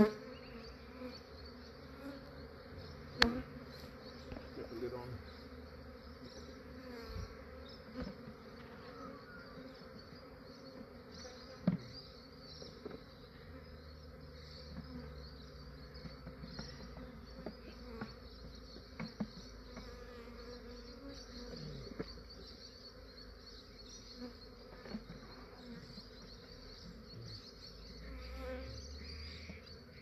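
A large swarm of honey bees buzzing steadily, with a few sharp knocks over it, the loudest about three seconds in.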